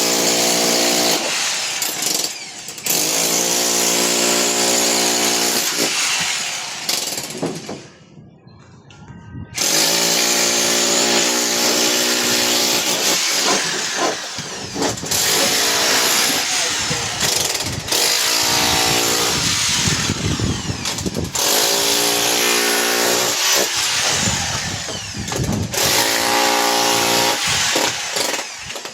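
A power tool running in repeated bursts of several seconds, a motor whine under loud noise, the pitch rising as it spins up at each start. It stops for about two seconds around eight seconds in.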